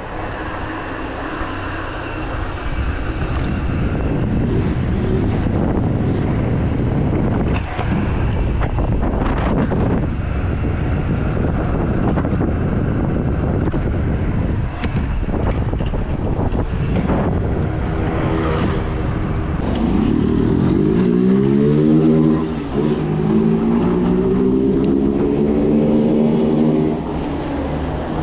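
A motorcycle engine running alongside, pulling up through its revs twice in the second half, over a heavy rush of wind and road noise on the microphone.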